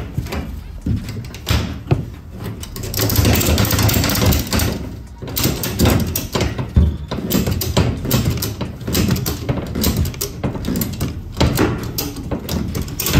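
Ratchet tie-down strap being fitted and tightened over a car's tyre on a trailer floor: irregular clicks and clanks of the ratchet and metal hooks, with webbing rustling about three to five seconds in.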